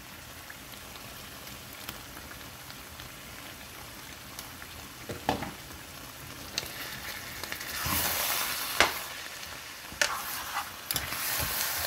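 A pan of spinach and meat stew sizzling on the stove, softer at first and louder from about eight seconds in as a spoon stirs it, with a few knocks of the spoon against the pan.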